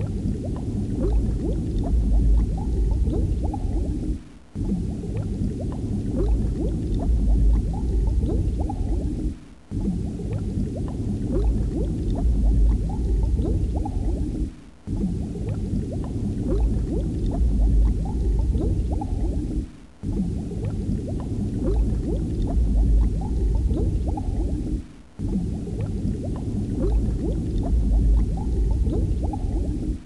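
Underwater bubbling and gurgling water ambience with a deep rumble, played as a loop that repeats about every five seconds with a brief drop-out between repeats.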